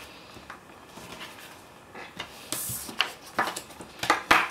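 Sheets of paper and pieces of grey cardboard being handled and laid down on a wooden tabletop: soft rustles and slides of paper, with a few light taps and clacks in the last second and a half, the loudest near the end.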